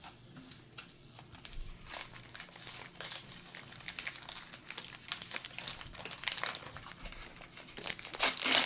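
Packaging being handled and unwrapped by hand: steady crinkling and crumpling with small crackles, growing to a louder crackling burst near the end.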